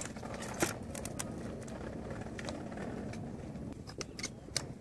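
Outdoor background with a low, steady rumble and several sharp clicks and knocks at irregular intervals.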